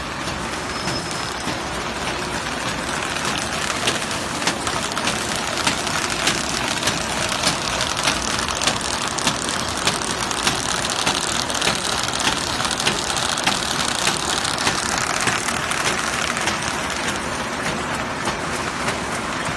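Automatic square-bottom paper bag making machines running: a dense steady mechanical noise with regular sharp clicks, about two a second, through the middle.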